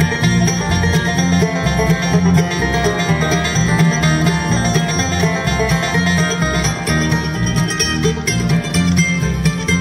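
Bluegrass band playing live: fast banjo picking over mandolin, fiddle and guitar, with a steady on-the-beat bass line.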